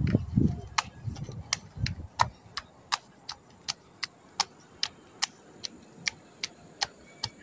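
Steady clock-like ticking, about two and a half sharp ticks a second, with a few dull low thuds in the first two seconds.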